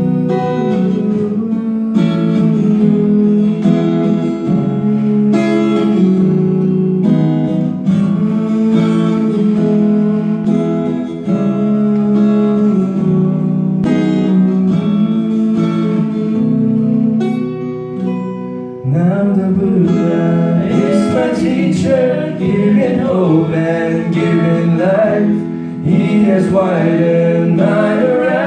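Acoustic guitar strummed in steady chords; about two-thirds of the way through, singing voices come in over it.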